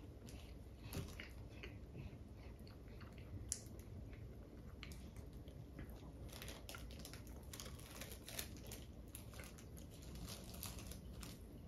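Faint close-up chewing and mouth sounds of someone eating a soft manju (bean-paste bun). Scattered small clicks grow busier in the second half as the plastic wrapper is handled.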